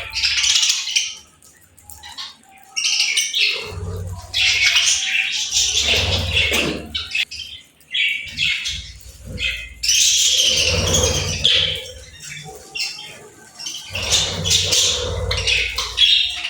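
Budgerigars chirping and chattering in bursts of a few seconds, with short lulls between them and a low rumble under the louder bursts.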